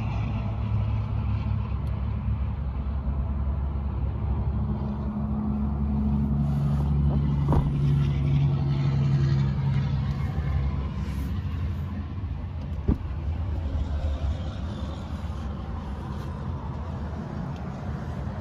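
Low, steady vehicle engine rumble heard from inside an SUV cabin. It swells louder for several seconds in the middle, then settles. There is a sharp click about halfway through and a single tick a few seconds later.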